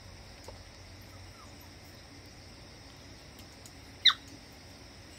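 A puppy gives one short, high yelp that drops quickly in pitch, about four seconds in, as a grown dog mouths its head in play.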